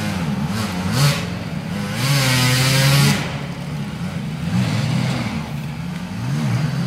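Several off-road enduro motorcycle engines revving up and down together as riders struggle up a muddy slope, with a loud held high rev from about two to three seconds in.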